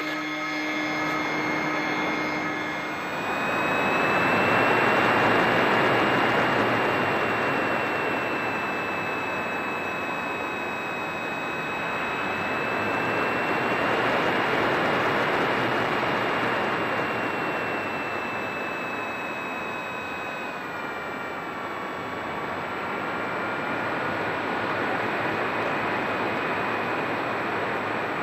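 Radio-controlled model airplane's motor and propeller heard from a camera on board in flight: a steady high whine over a loud rush of air, the whine easing slightly lower about twenty seconds in.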